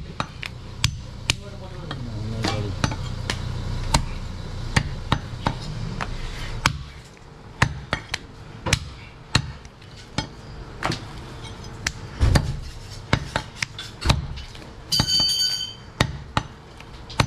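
A heavy meat cleaver chopping mutton on a wooden tree-stump chopping block: sharp, irregular chops, about one or two a second.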